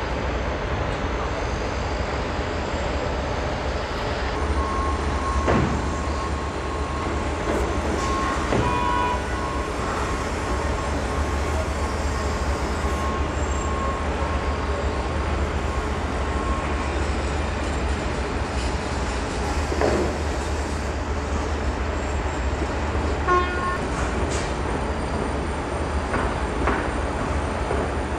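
Construction-site ambience: a steady rumble with a few sharp knocks and a thin high whine that comes and goes over the first half.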